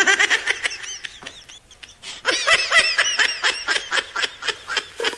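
High-pitched giggling laughter in two bouts of quick, rapid pulses, the second bout longer.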